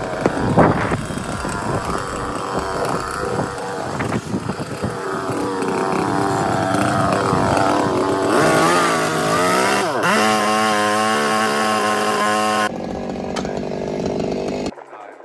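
Chainsaw running and cutting into a wooden rail, its engine pitch swinging down and back up about ten seconds in. The sound cuts off suddenly near the end.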